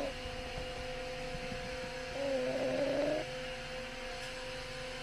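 Snoring in sleep: a pitched, whistling snore breath of about a second falls near the middle, rising in pitch at its end, and the tail of the previous one sits at the very start. A steady low hum runs underneath.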